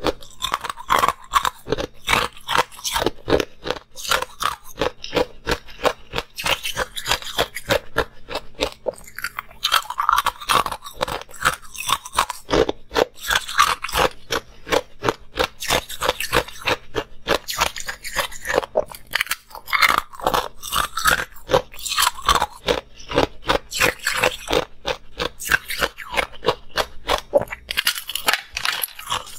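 Close-miked crunching of ice cubes being bitten off a frozen sheet and chewed: a dense, unbroken run of sharp cracks and crackles.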